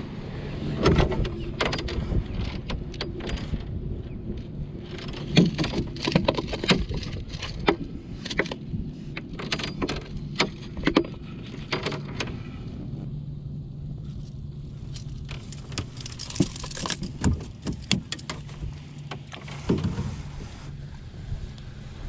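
Scattered metallic clinks and knocks of fishing pliers and a lip-grip tool handled against a boat's deck while a freshly caught fish is unhooked, over a steady low hum.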